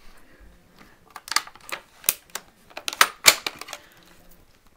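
Plastic prop gun handled close up: an irregular run of sharp clicks and rattles, closest together about three seconds in.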